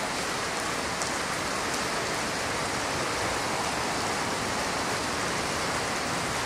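Steady, even hiss of broad noise, like rain on a roof, with a few faint ticks.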